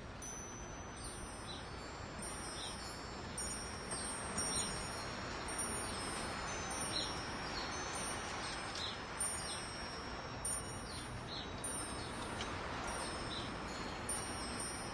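Wind chimes ringing irregularly, high clear tones starting at random moments and overlapping as they ring on, over a steady hiss.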